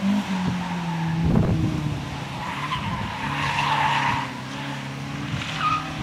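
Chrysler Avenger saloon's four-cylinder engine running hard as the car passes and turns into a bend, with tyres squealing from about three seconds in until just after four.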